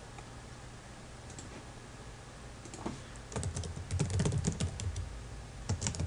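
Typing on a computer keyboard: a quick run of keystrokes starting about halfway through, after a quiet first half.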